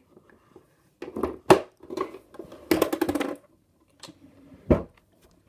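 Small objects being handled: scattered clicks and knocks, a quick rattling run of clicks about halfway, and a low thump near the end, as makeup items are picked up and put down.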